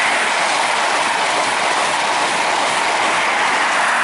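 Class 43 HST passenger train passing close at high speed: a loud, steady rush of wheels on rail and air.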